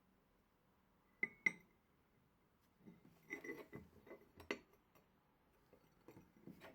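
Light clinks and knocks of small hard objects, most likely metal parts or tools handled on a workbench: two sharp clinks about a second in, a quick cluster of clinks and taps a couple of seconds later, and a few softer taps near the end.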